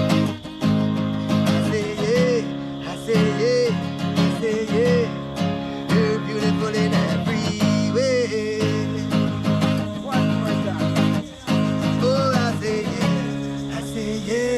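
Music: a song with guitar chords, a recurring melody line and a steady beat, with no sung words in this stretch.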